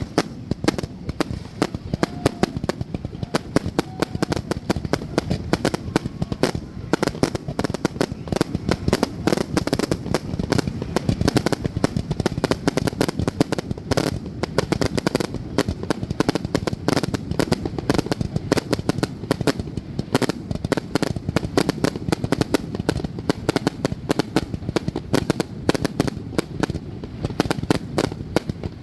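Fireworks exploding in a rapid, continuous barrage of bangs, many per second with no pause.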